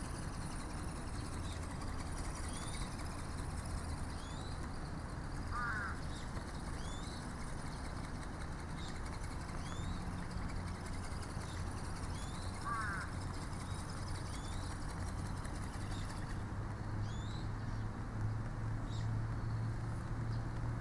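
Birds calling outdoors over a steady low hum. A small bird repeats a short rising chirp about once a second, and three louder rising calls come about six seconds apart. The hum grows louder near the end.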